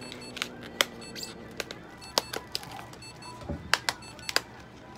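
Background music, with scattered sharp clicks and taps, about a dozen in all, from hands handling things at a metal exam table.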